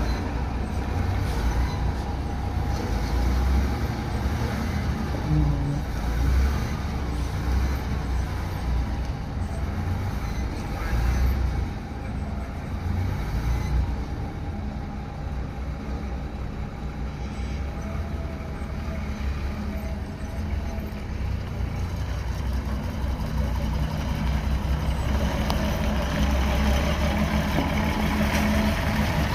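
Diesel engines of retro Ikarus city buses idling with a steady low rumble, growing louder in the last few seconds as one bus moves up close.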